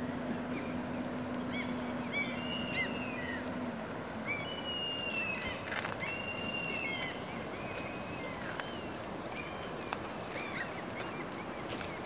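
River water running steadily over a shallow stony bed, with small birds chirping repeatedly over it. A low steady hum stops about four seconds in.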